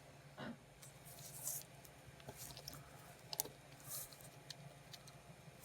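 Faint scattered clicks and light scrapes of small metal and plastic parts being handled as a die-cast toy car is taken apart, over a low steady hum.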